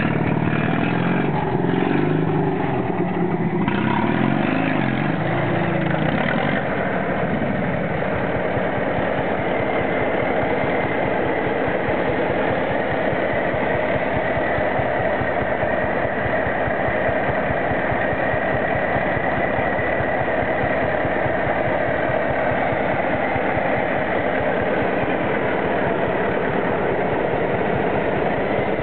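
Fiat 70C crawler tractor's engine running. For about the first six seconds the pitch wavers up and down, then it settles into a steady idle.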